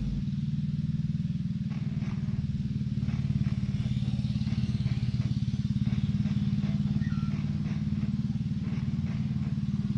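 An engine running steadily with a fast, even low throb.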